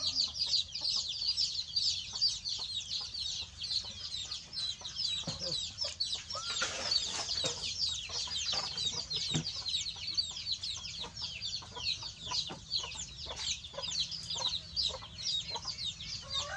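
Many small birds chirping: a dense, unbroken stream of short, high calls. Scattered soft knocks and clicks sound underneath.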